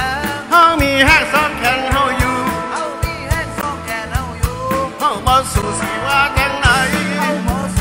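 Live band music: a singing voice or bending lead line over a steady drum beat.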